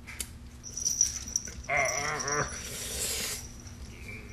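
Young domestic shorthair kitten crying out in protest while held and handled, with a short wavering cry about two seconds in. The kitten is fed up with being handled.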